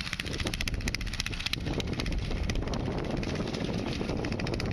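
Go-kart's Predator 420cc single-cylinder four-stroke engine running as the kart drives over grass. A rapid, even firing beat stands out for the first second and a half or so, then blends into a steadier low rumble.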